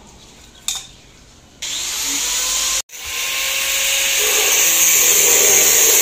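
Handheld angle grinder cutting metal, throwing sparks. Its loud, steady high-pitched grinding starts abruptly about a second and a half in, breaks off briefly near three seconds, then comes back and holds.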